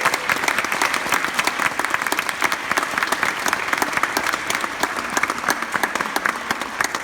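Audience applauding: many people clapping steadily, beginning to fade near the end.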